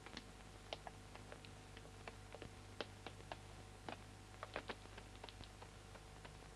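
Near silence with faint, irregular clicks, a few each second, over a steady low hum: crackle and hum of an old film soundtrack.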